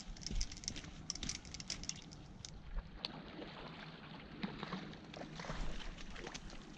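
Steady rush of river water, with scattered small clicks and rustles during the first couple of seconds that thin out afterwards.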